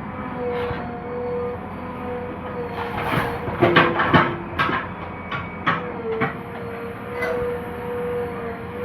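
JCB 3DX backhoe loader running under load with a steady whine. A run of sharp clanks and knocks comes about three to six seconds in, and one more near the end.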